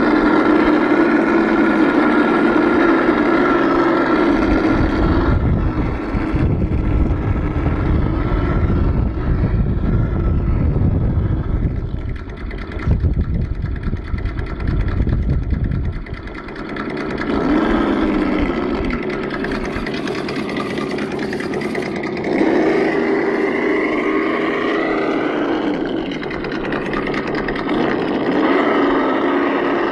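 Simulated V8 engine sound played by the ESS-One sound module's speaker on an Axial SCX10 RC crawler, running steadily, with the revs rising and falling several times in the second half. From about five seconds in to about sixteen seconds in, a low rumbling noise rises over it.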